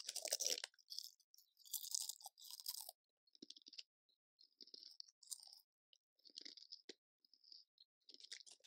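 A person chewing a mouthful of deep-ridged Lay's potato chips. Crisp crunches are loudest in the first three seconds, then give way to smaller, fainter crunches as the chips are chewed down.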